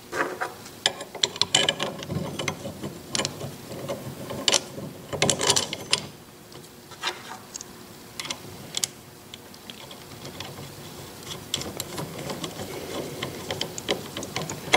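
Metal lathe change gears clicking and clinking as a 64/32 compound gear is handled, fitted onto the banjo and worked into mesh by hand. Irregular metallic clicks throughout, busiest about four to six seconds in.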